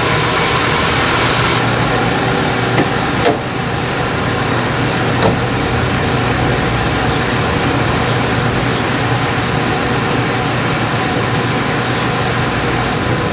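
Lincoln Navigator's 5.4-litre V8 idling steadily while the newly fitted aftermarket air suspension compressor runs and pumps up the air springs to raise the truck. A high hiss cuts off about one and a half seconds in, and a few light clicks follow.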